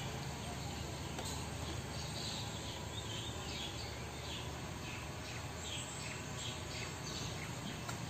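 Small birds giving short, repeated downward-sliding chirps over a steady background hiss of open-air ambience.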